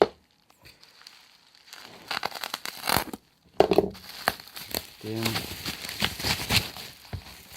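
Packaging being unwrapped by hand: irregular crinkling and tearing in bursts, with a short pause about three seconds in.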